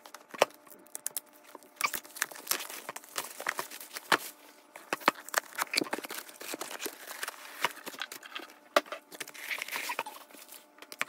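Binder packaging being unboxed by hand: plastic wrap crinkling and cardboard rustling, in many short, sharp clicks and rustles.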